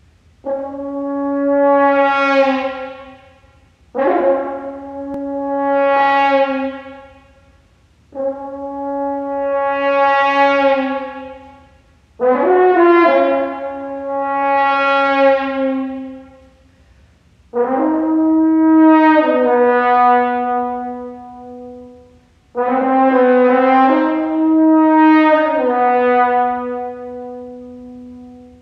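French horn playing an unaccompanied solo: six long held phrases, each swelling and then fading away, the later ones moving between two notes partway through.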